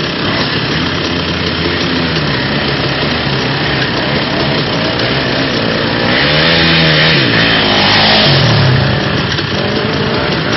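Quad bike (ATV) engines running and revving, pitch rising and falling as the throttle is worked. About six seconds in, one quad ploughs through a muddy water crossing at close range: its engine is loudest and climbing, with a rush of splashing water and mud.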